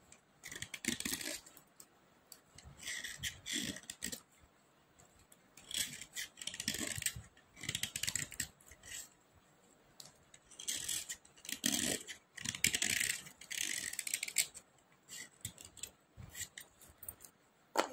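Utility-knife blade scraping dry slate pencils: about five bursts of rapid rasping strokes, with light clicks between the bursts.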